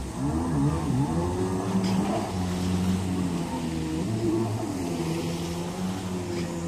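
Jet ski engine running out on the water, its pitch swinging up and down for the first couple of seconds as it turns and throttles, then holding steadier as it runs off.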